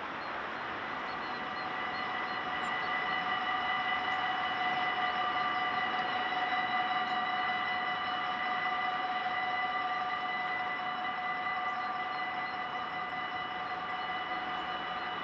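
Level-crossing warning bells ringing continuously in a rapid, steady ring, with a few tones held over the top that grow stronger about a second in. The crossing is closing for an approaching train as its barriers come down.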